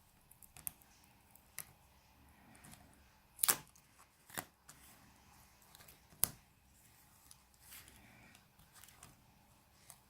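Scattered small clicks and taps from the opened Samsung Galaxy S4's parts and small tools being handled as its charging port board is lifted out. The sharpest clicks come about three and a half, four and a half and six seconds in.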